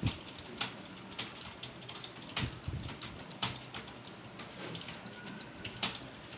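Computer keyboard keys being struck during a typing test: a few sharp clicks at irregular gaps, over a steady faint hiss.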